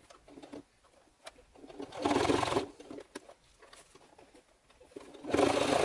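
Brother household sewing machine stitching through several layers of suede leather in two short runs, about two seconds in and again near the end, with handling clicks between. It is struggling with the thick layers.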